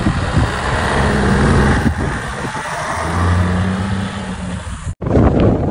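A car driving past on an asphalt road: a steady rush of road noise with a low engine hum that comes through twice. The sound cuts off suddenly about five seconds in.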